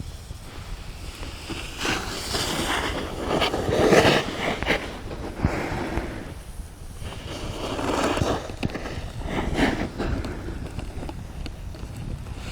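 Snowboard edge scraping and sliding over hard, icy snow in two long swells, with a few short knocks.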